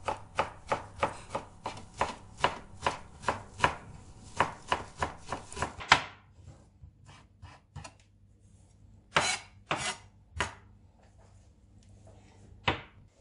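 Chef's knife chopping fresh dill on a cutting board: quick, even chops about three a second for the first six seconds, then a few scattered, louder chops with pauses between them.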